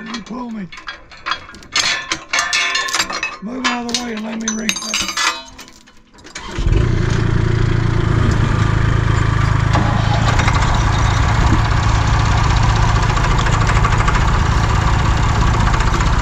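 Low voices and a few metal clinks, then about six seconds in a tractor engine cuts in suddenly and runs loud and steady. The engine is the Massey Ferguson 20 tractor close by.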